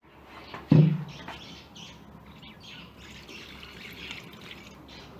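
Birds chirping, with one louder, short, low call that falls in pitch about three-quarters of a second in.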